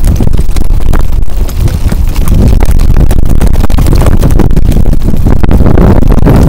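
Loud wind buffeting and road rumble on a camera riding in a towed bicycle trailer, with frequent rattling knocks as the trailer rolls over the pavement.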